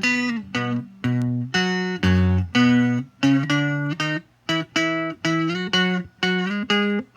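Electric twelve-string guitar, a Rickenbacker 360/12-style copy, playing a sequence of chords, each struck and left to ring briefly, about two a second, with short breaks between some of them.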